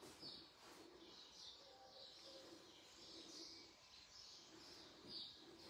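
Near silence: quiet room tone with faint, short bird chirps repeating every half second or so, heard from outside.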